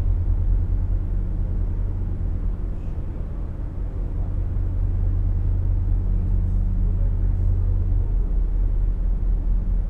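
A canal boat's diesel engine running steadily at an even, low pitch.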